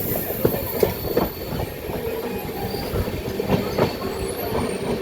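Passenger train running on the track: its wheels rumble steadily and give a string of sharp, irregular clacks and knocks over rail joints, with a faint squeal from the wheels.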